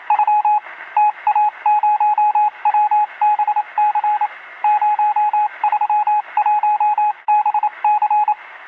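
Morse-code-style beeping: one steady high tone keyed rapidly in irregular short and long pulses over radio-like hiss.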